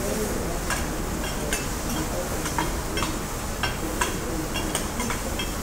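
Metal spatulas clacking and scraping on a hot steel teppanyaki griddle as vegetables are tossed: irregular sharp clacks, roughly two a second, over a steady sizzle.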